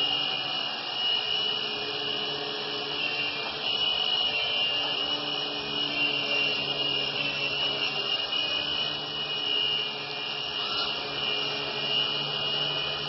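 Micro four-channel RC coaxial helicopter in flight: steady whir of its small electric motors and twin rotor blades, with a high whine that wavers a little as it manoeuvres.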